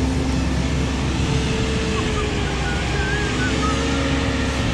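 Truck-mounted water-well drilling rig running, its engine a steady drone.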